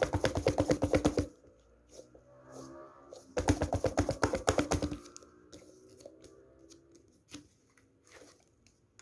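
Squishy toy being squeezed and handled: two runs of rapid crackling clicks, each lasting a second or more, the second starting about three and a half seconds in, followed by a few softer scattered taps.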